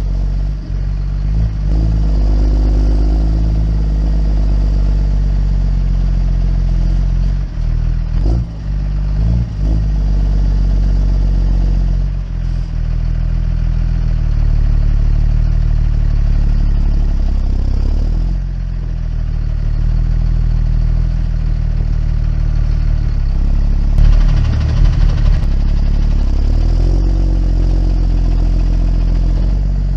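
Diesel engine of a muck cart running steadily under way, its note easing briefly a couple of times, with a few sharp clattering knocks about twenty-four seconds in.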